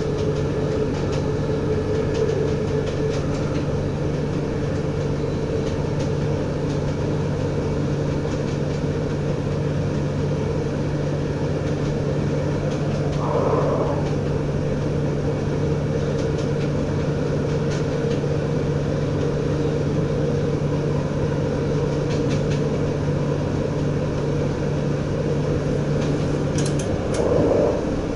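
NS DM'90 diesel multiple unit running at speed, heard from the driver's cab: a steady low diesel engine hum over wheel and rail noise. The engine hum stops about a second before the end, with a short louder swell at the same moment.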